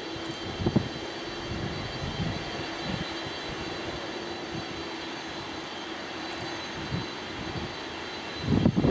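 Boeing 747-400's four General Electric CF6-80C2 turbofans running at low taxi thrust: a steady jet hum with a thin high whine. Irregular low rumbles come and go, the loudest near the end.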